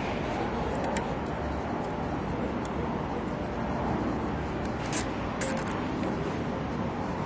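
Steady background noise with a few short clicks, then a quick run of ratcheting clicks about five seconds in as a plastic zip tie is pulled tight around the cart tire and rim.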